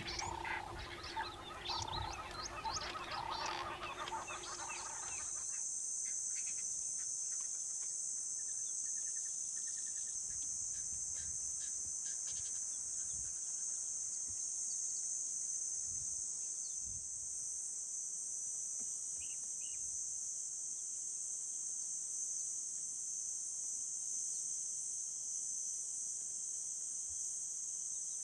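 Steady high-pitched drone of insects, starting about four seconds in. Before it, a dense chorus of repeated wildlife calls cuts off about five seconds in.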